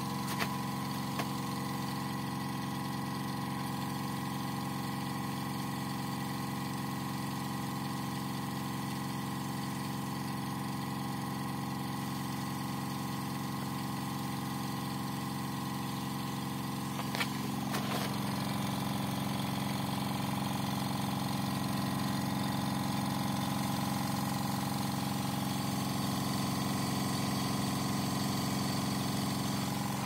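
Stanley Fatmax 6-litre 8-bar silent air compressor running steadily while it inflates a skid steer tire through an inflator gauge. Its hum holds an even pitch, with a sharp click about halfway through after which the note shifts slightly.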